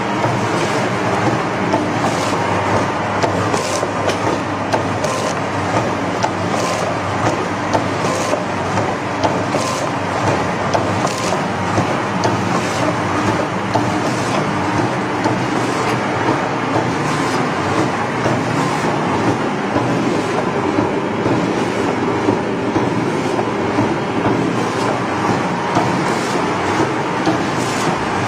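Powder filling and packing machine running steadily as it fills and back-seals sachets, a constant mechanical noise with a regular click about one and a half times a second.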